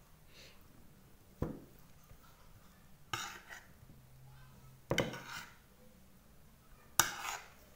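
Metal spoon clinking and scraping against a ceramic plate while eating, four separate clinks about two seconds apart, each ringing briefly. The last one is the loudest.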